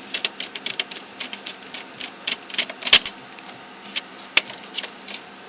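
Quick irregular small clicks and taps of a screwdriver turning screws out of a PlayStation 3's internal parts, with two sharper clicks about three seconds and four and a half seconds in.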